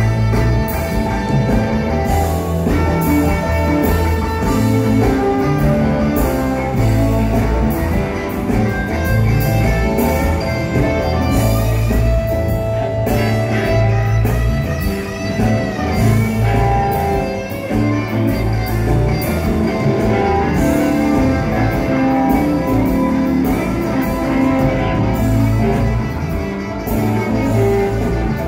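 Live blues-rock band playing an instrumental passage: electric guitars play lead lines over bass and a drum kit.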